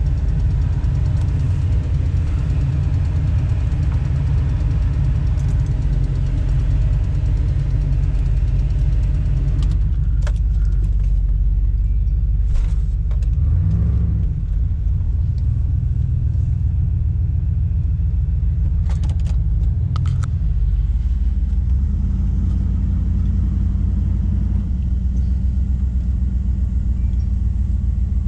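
Truck engine running with a steady low rumble. It briefly picks up speed about halfway through and settles at a slightly higher note near the end. A few short clunks and clicks are heard along the way.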